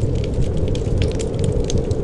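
Wood fire crackling in a fireplace: many small irregular pops and snaps over a steady low rumble.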